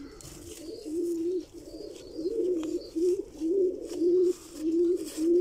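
Domestic pigeon cooing in a run of short, low notes, about two a second, faint at first and louder from about two seconds in.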